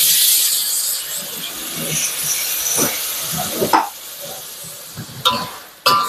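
Beef with pickled greens and shiitake mushrooms sizzling loudly in a hot wok over a gas flame while a metal spatula stirs and tosses it. The sizzle is loudest in the first second and then eases, and the spatula knocks and scrapes against the wok several times in the second half, some knocks ringing briefly.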